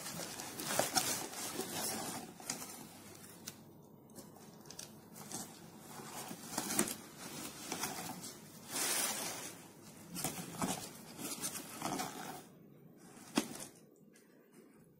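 Packing material and cardboard rustling and crinkling in irregular bursts as a digital linear scale with a metal-armoured cable is handled and lifted out of its box, with a few light knocks and clicks.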